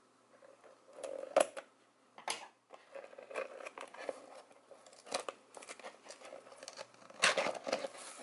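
Scissors snipping at the tape sealing a cardboard box, then the cardboard flaps being pried and pulled open with scrapes and rustling. The sound is a run of scattered sharp clicks and scrapes, loudest a little over a second in and again near the end.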